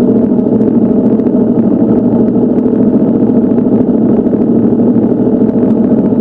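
Steady noise of a motorcycle being ridden at an even pace: the engine running without change in speed.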